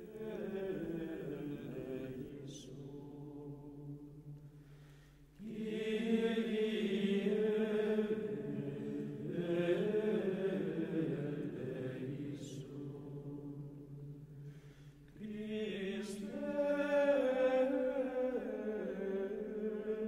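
Background music of slow chanted singing in long held phrases, growing louder about five seconds in and again about fifteen seconds in.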